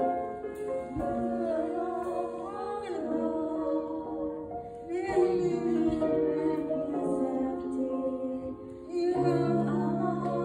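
A woman sings a slow song in phrases into a microphone, accompanied by held chords on a grand piano.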